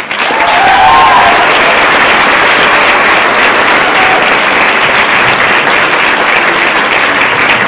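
Audience applauding, loud and steady, easing off a little near the end.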